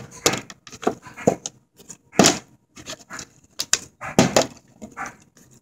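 A plastic water bottle being handled and flipped: a string of crinkles and knocks from the plastic, the loudest about two seconds in.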